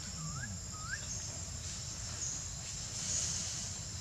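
Forest ambience: a steady high-pitched insect drone that swells about three seconds in, with two short rising bird whistles in the first second.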